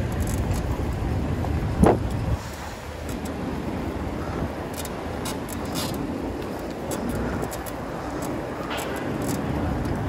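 Outdoor road noise heard from a moving bicycle: a steady low rumble of wind and traffic, heavier for the first two seconds, with one brief sharp sound about two seconds in.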